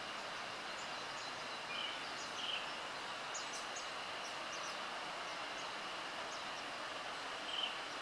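Brown-headed thrush singing: two short fluty notes about two seconds in, then a run of thin high notes, and the next phrase beginning near the end. A steady hiss and a faint thin high tone run underneath.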